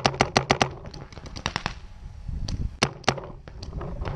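Paintball markers firing: a fast string of about eight shots in the first second, a few more about a second and a half in, then scattered single shots near the end. A short low rumble comes a little past two seconds.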